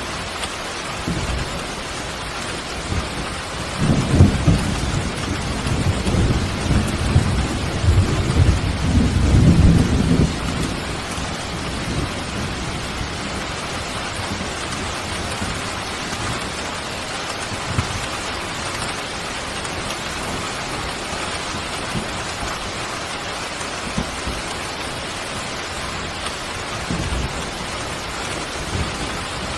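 Steady rain falling, with a low, rolling rumble that swells from about four seconds in and dies away around ten seconds in.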